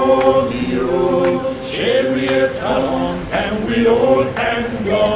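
Several voices singing a sea shanty chorus together in harmony, unaccompanied, in phrases that rise and fall.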